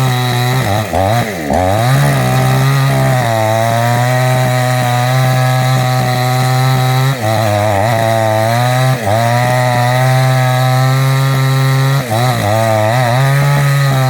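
Two-stroke chainsaw running at high revs, cutting into a jackfruit trunk. Its engine pitch sags and recovers a few times as the chain bites.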